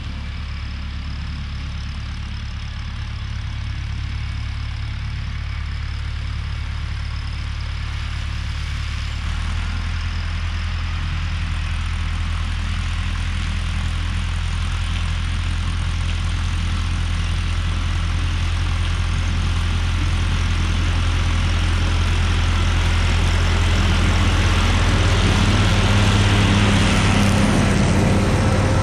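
Tractor engine running steadily as the tractor drives closer while mowing, growing gradually louder; its note steps up slightly about nine seconds in, and a hiss from the mower builds near the end as it draws near.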